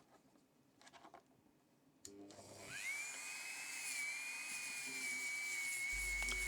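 Small high-speed rotary tool fitted with a wire brush starting up about two seconds in, its whine rising quickly, then running with a steady high-pitched whine. A few faint clicks come before it starts.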